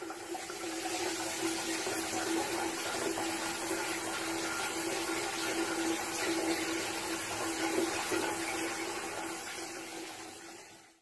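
Shower running, a steady hiss of water spraying onto a tiled shower floor. It fades in at the start and fades out near the end.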